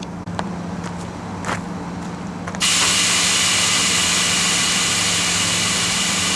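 A vehicle engine hums steadily, then about two and a half seconds in a loud, steady hiss of compressed air starts suddenly and keeps going: air being let out of the boat trailer's air-bag suspension.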